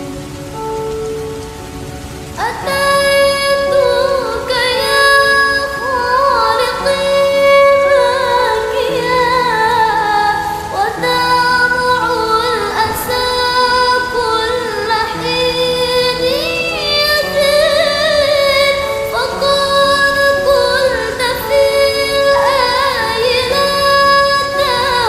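Devotional sholawat music in a wordless melodic passage of layered, gliding voice-like lines over a steady rain sound effect. The melody swells up about two and a half seconds in.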